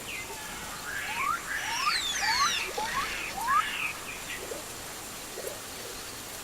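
Forest creature or bird chirps in a sci-fi forest ambience: a burst of quick chirps, some rising and some sweeping down, from about a second in until just under four seconds, over a faint steady background hiss.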